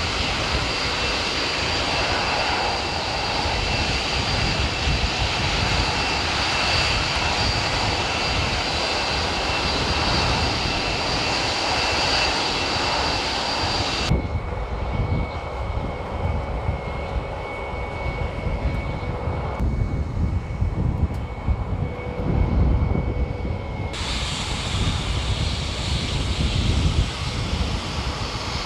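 B-1 Lancer bomber's jet engines running loud and steady, a high whine over a deep rumble. About halfway through, the sound turns abruptly duller, a low rumble with a thin steady tone. About ten seconds later the full, bright jet noise returns.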